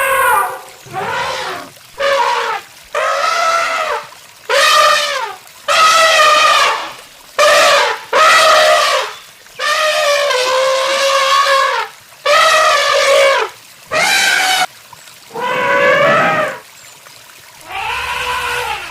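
An animal calling over and over: about a dozen loud, pitched calls, each half a second to a second and a half long, separated by short pauses.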